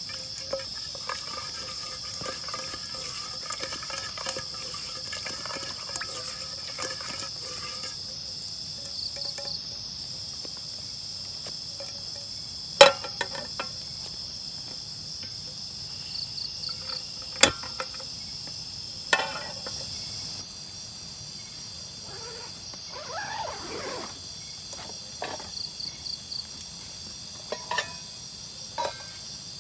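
Steady high-pitched chorus of crickets and other night insects, with a few sharp knocks or clicks, the loudest about 13 and 17 seconds in.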